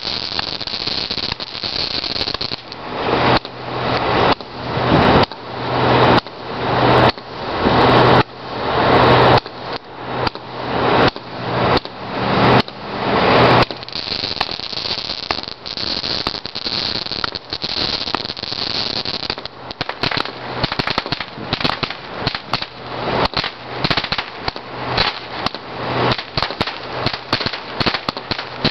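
Texas Fiesta consumer firework cake firing a long string of shots. First comes a run of about ten loud shots roughly a second apart, each building up and then cutting off sharply. From about halfway through comes a faster, denser volley of pops and crackles.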